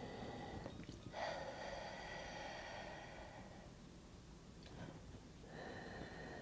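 A woman breathing out hard through a wide-open mouth with her tongue pushed out, a faint breathy 'haa'. Two long outbreaths, one from about a second in and another starting near the end, with a quieter pause between.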